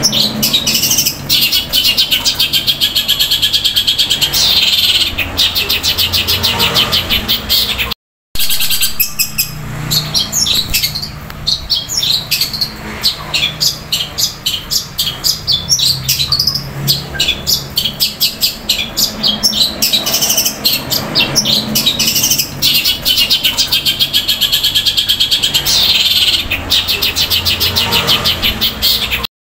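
Long-tailed shrike (cendet) singing a long, loud, fast-rolling chatter of rapidly repeated sharp notes, mimicking the squabbling calls of fighting sparrows. The song breaks off in a brief silent gap about eight seconds in.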